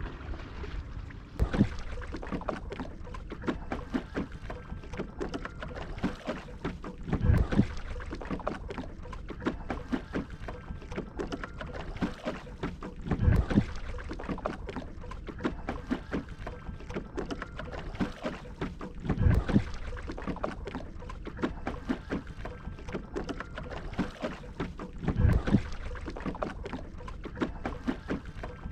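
A shikara being paddled through lake water: a louder stroke of the paddle surges through the water about every six seconds, with steady lapping and small splashes and drips in between.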